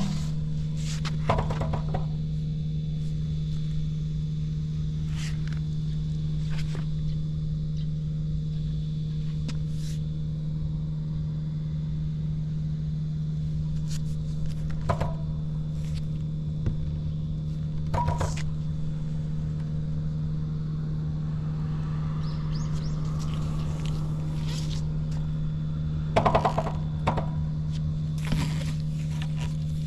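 Suzuki GN125H's air-cooled single-cylinder four-stroke engine idling steadily, with a few short clicks and knocks over it. The engine runs without abnormal noises, as the seller claims.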